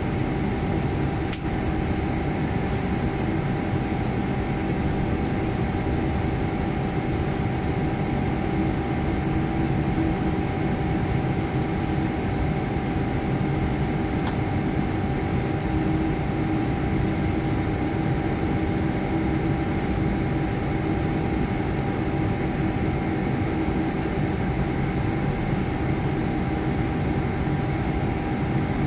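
Steady cabin noise inside a Boeing 787-9 airliner taxiing after landing: a low, even rumble of the engines at idle and the air-conditioning, with a few steady whining tones over it. A single brief click about a second and a half in.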